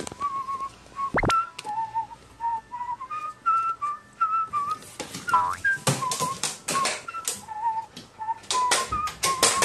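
Pet carrion crow rapping its beak on a hard surface: quick clusters of sharp taps about six seconds in and again near the end, over a whistled background tune.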